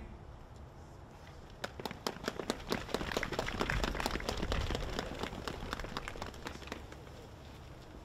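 Audience clapping for the choir, starting about a second and a half in, building to a dense patter, then thinning out near the end.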